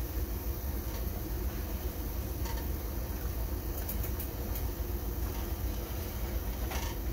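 A spatula stirring a pot on the stove, with a few faint clinks and scrapes against the pot, over a steady low hum.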